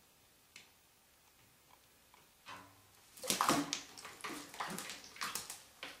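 An African grey parrot splashing and flapping her wings in shallow bath water in a sink, in loud irregular bursts starting about halfway through, after a few faint clicks.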